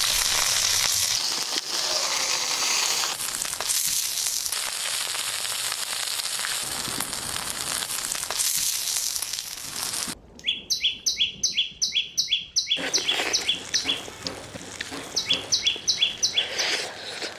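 Frogs sizzling in sauce on a hot grilling stone. About ten seconds in this gives way suddenly to a rapid run of high, falling chirps, about five a second. The chirps go on in two series, with the sizzling back under the second.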